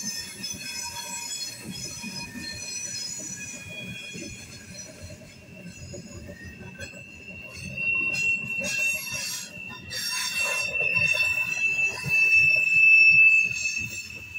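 Norfolk Southern coal hopper cars rolling past on a curve: a low rumble and clatter of the steel wheels on the rails, with high steady flange squeal from the wheels grinding against the rail on the curve. The squeal settles into one piercing tone about halfway through and grows loudest just before the end.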